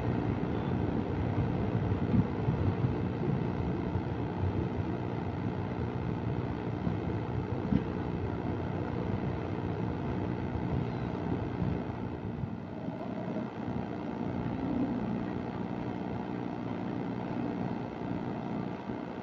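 A passenger train moving along the rails: a steady running noise of wheels and carriages, heard from an open coach doorway.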